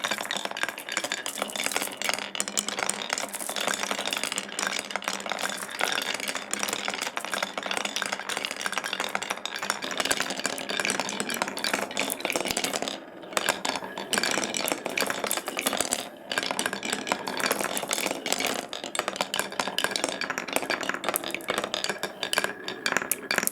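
Marbles rolling and clattering down a wooden marble run track, a dense continuous rattle of clicks, with brief lulls about 13 and 16 seconds in, cutting off suddenly at the end.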